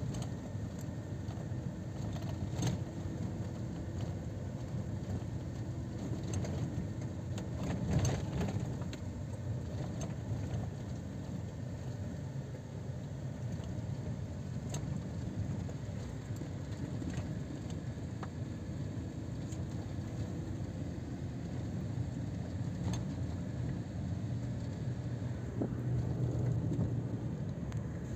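Car driving over a dirt desert track, heard from inside the cabin: a steady low rumble of engine and tyres, with occasional short knocks from bumps.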